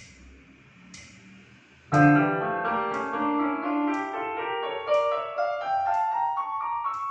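Piano music comes in loudly about two seconds in, a line of notes climbing steadily higher in pitch. A faint click sounds about once a second throughout.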